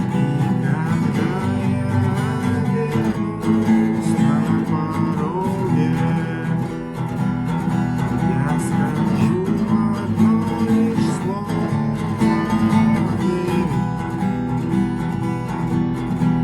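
Acoustic guitar strummed continuously with frequent sharp percussive strokes, the 'knock' (стук) strumming technique, in which the strings are struck and muted.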